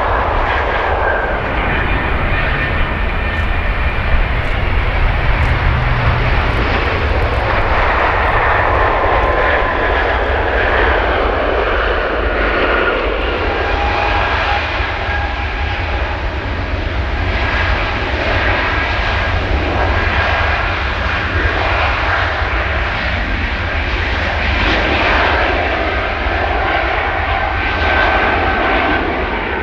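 Airbus A350's Rolls-Royce Trent XWB turbofan engines running: a steady, loud rumble with several whining tones over it that drift slightly in pitch.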